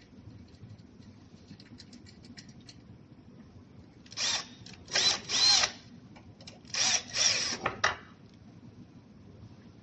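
Power drill whirring in about five or six short trigger bursts, each rising and falling in pitch, turning screws on the treadmill.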